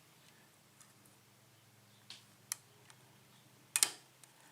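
Light metal clicks of a lock pick working the pins inside a 5-pin euro cylinder lock, a handful of scattered clicks with the loudest, a quick double click, about four seconds in.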